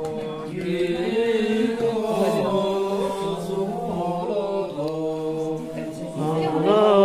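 Voices chanting in long held notes over a steady low tone, a mantra-like melody that gets louder near the end.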